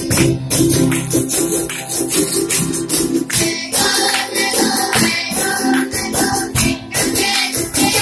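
Live music with singing over a steady percussive beat, and an audience clapping along in time.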